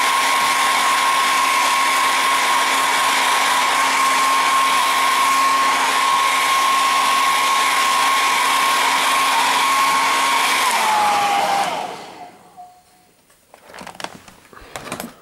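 Hair dryer blowing hot air onto a TV's main circuit board: a steady rush of air with a motor whine. It is switched off about eleven seconds in, its whine dropping as it winds down. A few faint knocks follow near the end.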